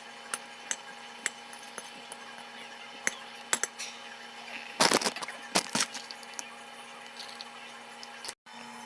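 Kitchen utensils and dishes clinking and tapping: scattered sharp clinks, with a busier cluster of knocks and clinks about five seconds in, over a steady low hum.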